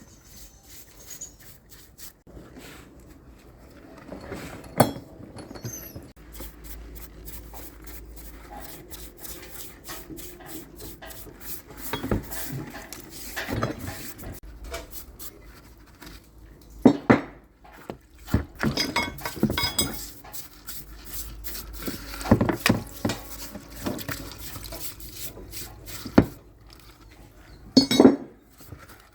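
Irregular metallic clinks and knocks of tools and parts being handled during mechanical repair work, a sharp strike every few seconds over a low background.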